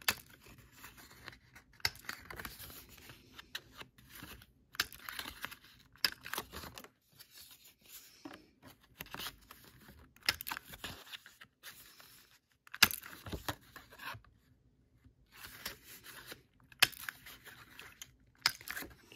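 Paper rustling and crinkling in irregular bursts, with a few sharp clicks, as small pieces of paper are handled and trimmed to round their corners.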